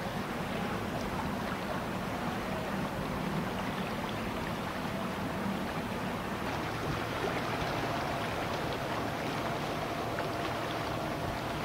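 Buoy-tender ship under way on a river: a steady engine hum under the rush of water washing along its hull, with a faint higher whine joining about halfway through.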